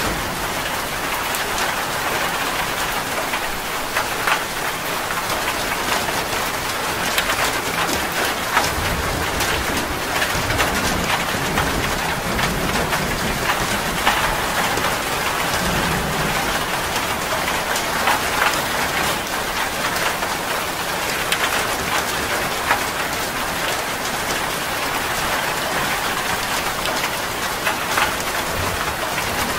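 Steady rain falling on a surface, an even hiss dotted with many sharp, close drop splashes.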